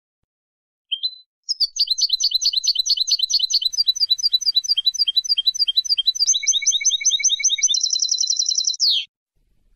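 European goldfinch singing: a short note, then a fast run of repeated high twittering notes that ends in a quick, even trill and cuts off suddenly.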